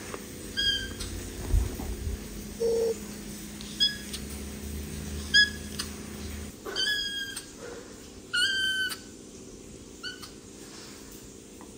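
A kitten mewing over and over: about six short, high-pitched mews, the two just after the middle drawn out longer. A single dull bump about a second and a half in.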